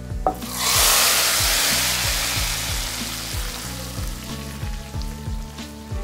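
Hot tadka of oil with fried garlic, cumin and dried red chillies hitting a pot of cooked dal: a loud sizzle about half a second in that slowly dies down. Background music with a steady beat runs underneath.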